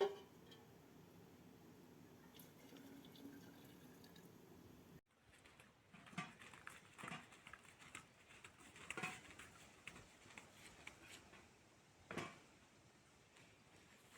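Faint kitchen sounds while making preserves: a low steady hum, then a scattering of light knocks and clinks, the sharpest about twelve seconds in.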